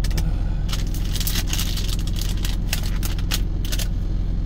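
Truck engine idling with a steady low hum inside the cab, with irregular crinkling as the sandwich's wrapping is handled and opened.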